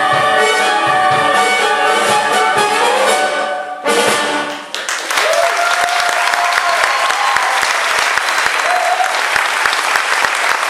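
Orchestral music with prominent brass holds a final chord, ending the show's finale about four seconds in. Then a theatre audience bursts into applause, with some voices cheering over the clapping.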